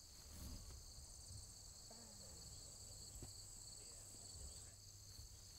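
Faint, steady chirring of insects in two high, unbroken bands, over a low rumble.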